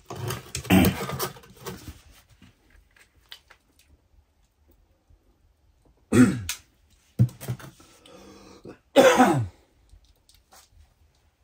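A man clearing his throat and coughing in a few short bursts, the loudest near the end, with quiet stretches between.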